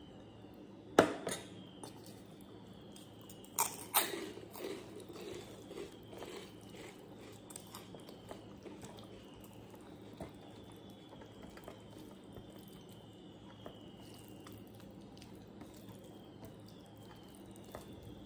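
A glass bowl clinks sharply against a steel plate about a second in and again a few times around four seconds, then soft wet squishing as rice and curry are mixed by hand on the plate.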